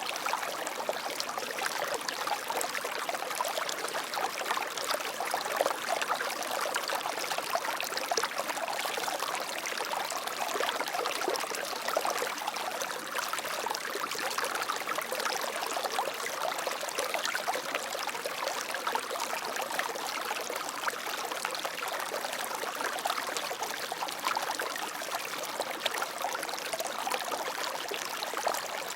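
Water flowing and trickling in a stream, a steady splashing rush.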